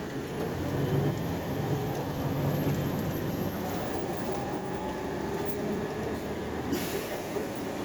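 Steady engine and road rumble inside a city bus driving between stops, with a short hiss about seven seconds in.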